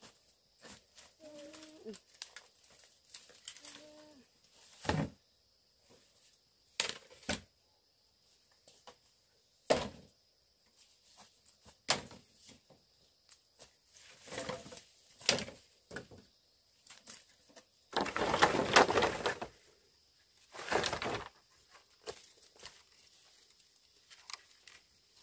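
Footsteps and rustling through dry leaves and undergrowth, with scattered knocks as cut green bamboo poles are grabbed and shifted, and a longer scraping rustle about eighteen seconds in as the poles are dragged through the brush.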